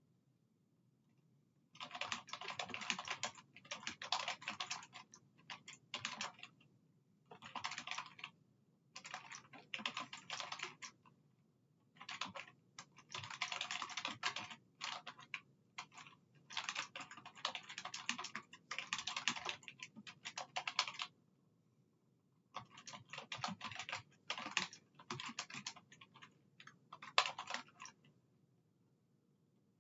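Typing on a computer keyboard: quick runs of keystrokes broken by short pauses, starting about two seconds in and stopping shortly before the end.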